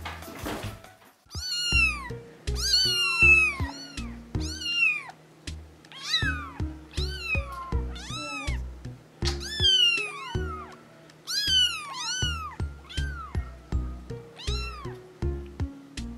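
Young kittens mewing over and over: about twenty high, thin calls that each rise and then fall, often two a second, over background music.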